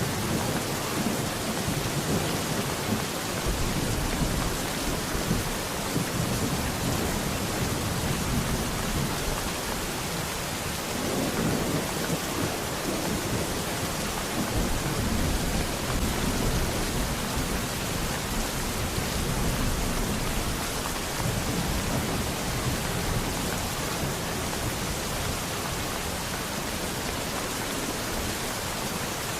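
Steady heavy rain hissing, with low rolls of thunder swelling and fading several times: a thunderstorm.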